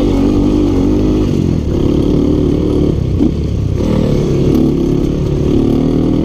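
Yamaha Vixion's single-cylinder four-stroke engine running under a trail ride, its revs rising and falling with the throttle. The owner says the engine is leaking compression and lacks pull.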